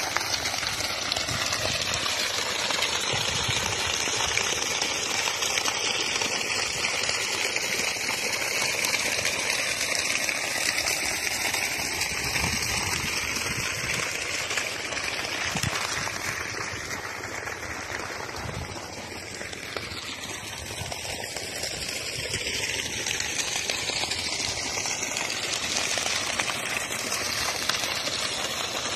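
Water gushing steadily from the outlet pipe of a Lorentz PS2-1800 solar deep-well pump and splashing onto the ground, the pump delivering a full flow. It is a little quieter for a few seconds past the middle.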